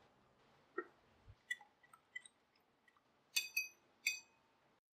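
A wire whisk stirring thin gram-flour and rava dosa batter in a bowl: light clicks and taps, then two ringing clinks of the whisk against the bowl near the end.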